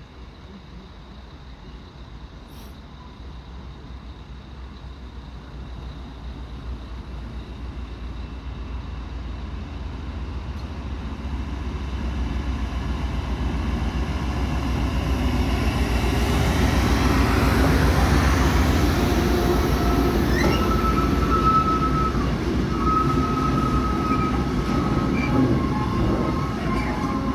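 Freight train arriving and running past, its rumble growing steadily louder over about fifteen seconds. From about twenty seconds in, a steady high-pitched wheel squeal rides on top.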